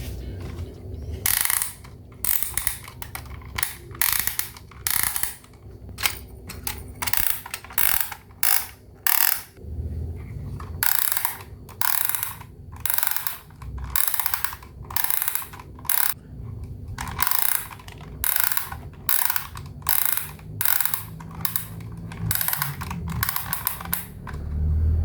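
A small plastic toy mechanism ratcheting in short, irregular bursts, about one or two a second.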